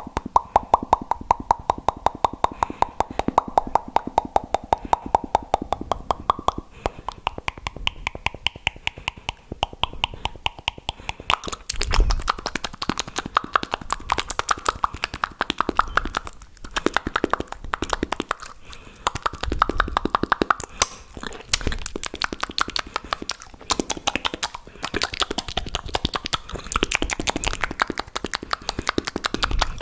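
Fast, wet mouth clicks and pops made close to the microphone, many a second without a break, in a quick even rhythm that shifts in tone over time.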